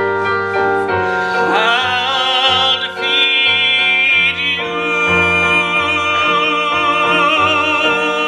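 A singer sliding up into a long held note with heavy vibrato over keyboard chords and a pulsing bass line.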